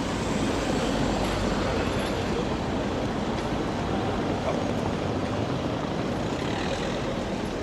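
Steady outdoor city background noise: a continuous even rumble with a traffic-like character and no single event standing out.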